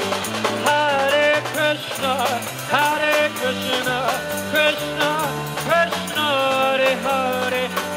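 Music with singing over a bass line and drums, in a ska-like style.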